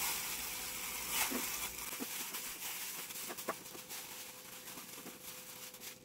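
Thin disposable plastic gloves rustling and crinkling as hands knead and toss seasoned rice with seaweed in a bowl, with a few faint clicks.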